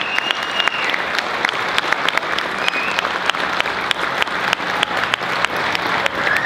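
Large audience applauding steadily, dense and continuous clapping, with a high whistle over it in the first second.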